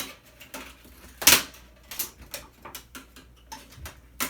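Clicks and knocks of plastic and metal parts being handled and pried apart during hand disassembly of an electronic device, with one louder knock about a second in.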